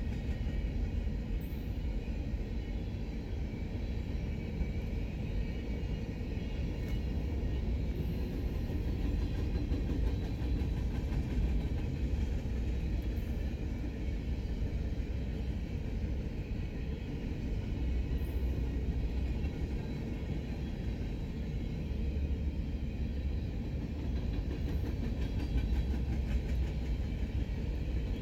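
Freight train's open-top cars rolling past, a steady rumble of steel wheels on the rails.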